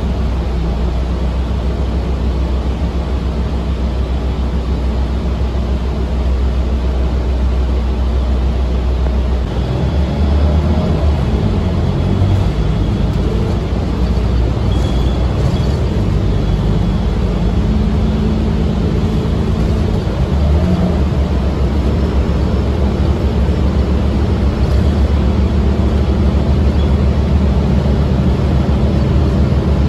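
Inside a moving city transit bus: a steady low engine and drivetrain drone with road noise. The engine note changes pitch between about ten and twenty seconds in as the bus changes speed.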